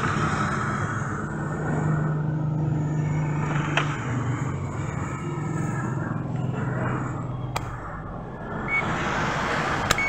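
A motor vehicle engine running steadily with a low hum that fades away about eight seconds in, with a couple of sharp clicks near the end.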